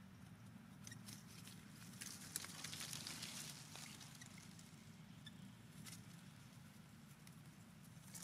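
Near silence: faint outdoor ambience with a steady low hum, a few light scattered clicks, and a soft rustling hiss that swells about three seconds in.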